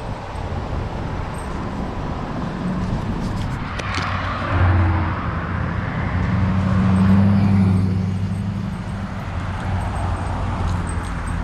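A motor vehicle passing at low speed: its engine hum and tyre noise swell about halfway through and fade away, over a steady outdoor rumble.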